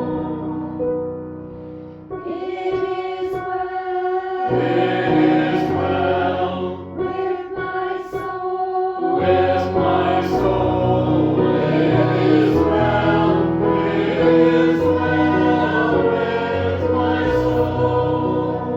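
Group of voices singing a slow hymn to instrumental accompaniment, held chords moving in steps; the low bass notes drop out twice for a moment.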